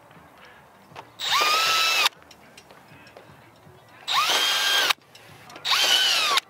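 Cordless drill boring holes through the plastic privacy slats of a chain-link fence, in three short bursts. Each whine rises as the motor spins up, holds steady, then cuts off abruptly.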